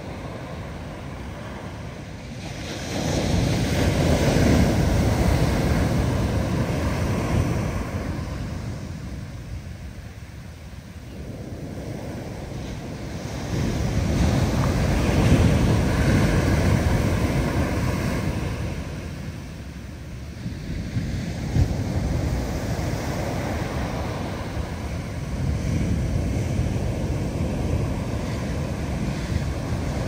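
Big ocean waves breaking and washing ashore as a deep, noisy surge that swells up about three seconds in, dies away, then swells again around thirteen seconds in before settling to a steadier wash. Wind buffets the microphone throughout.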